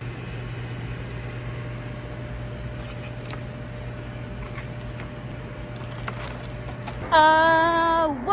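Steady low electrical hum of convenience-store equipment by a roller grill, with a few faint clicks of plastic tongs. About seven seconds in, a woman's voice breaks in loudly, singing a held note that falls slightly in pitch.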